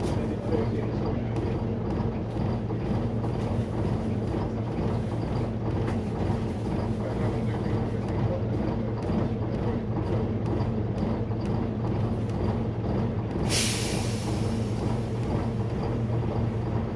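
Volvo Olympian double-decker bus's six-cylinder diesel idling steadily, heard from inside the lower deck. About thirteen and a half seconds in, a short loud hiss of air from the bus's air system.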